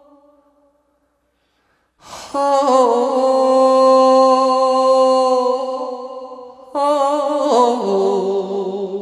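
A singer in Gyeonggi folk-song style holds a long note with a wavering vibrato, then begins a second phrase that steps down in pitch. This follows the fading end of an earlier note and about a second of silence.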